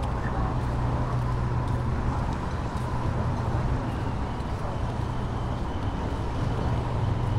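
Steady low rumble of running engines, like road traffic, with a faint steady high hum above it.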